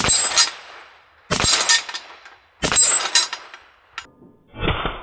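Three shots from a BinTac T9 .357/9mm semi-automatic PCP air pistol, fired in quick succession about 1.3 seconds apart. Each sharp report is followed by the metallic clang and ringing of a steel spinner target being hit.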